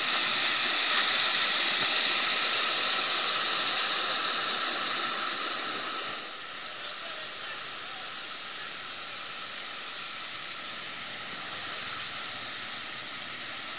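Floodwater rushing and gushing over a metal drain grate beside a sandbag wall: a steady rushing noise. It drops sharply about six seconds in to a quieter, steady hiss.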